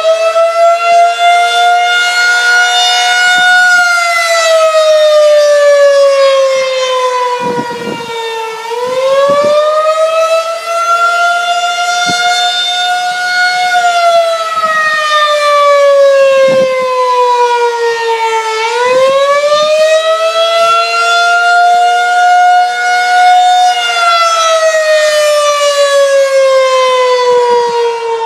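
Federal Signal 2001-SRN rotating civil defence siren sounding the attack signal: a loud wail that rises for about five seconds and falls for about five, three times over. Its level wavers as the horn turns.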